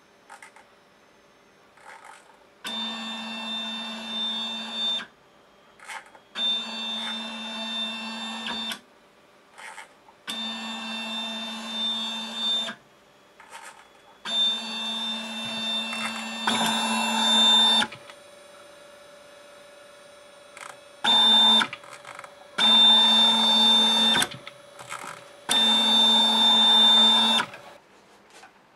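Stepper motor driving a DIY 3D printer's belt-driven Y-axis table back and forth along linear rails: a steady, even-pitched whine during each move, about seven jogs of one to three seconds each with short pauses between. A faint steady hum sounds during one longer pause.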